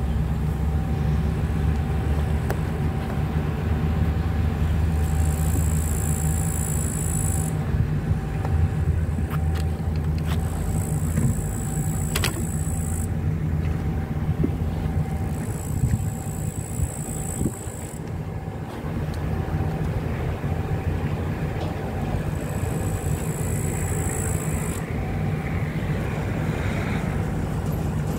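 A train's diesel engine running steadily with a low rumble. Above it a faint steady tone pulses regularly, and a high buzz comes and goes every few seconds.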